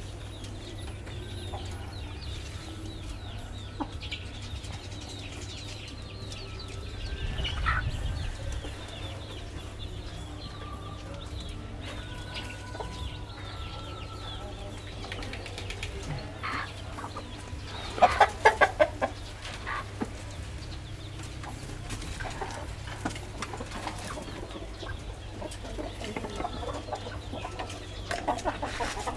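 Chickens clucking in a pen, with scattered short calls and a quick run of five or six loud clucks about eighteen seconds in.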